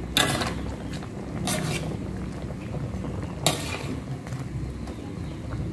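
Metal spatula scraping and knocking against an aluminium wok while stirring chicken simmering in thick coconut-milk sauce, done to keep the coconut milk from splitting. Three strokes, the sharpest about three and a half seconds in, over a steady low rumble.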